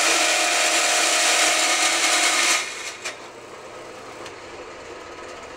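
Vertical band saw cutting 16-gauge sheet steel: a loud, steady rasp with a hum. It stops suddenly about two and a half seconds in as the blade leaves the cut, and the saw then runs on much quieter, with a single click soon after.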